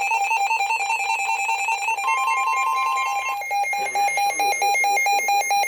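Weather radio alert alarm announcing a new severe weather warning. It opens with a fast warbling trill between two tones, with a steady higher tone sounding alongside for about a second two seconds in. It then turns to rapid beeping.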